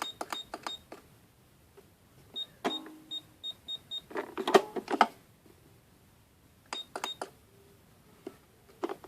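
Plastic buttons on a toy electronic cash register being pressed in quick succession, each press a click with a short high beep, then a run of about six quick beeps. A burst of loud plastic clicks and clatter comes about four seconds in, and a few more clicks and a beep follow.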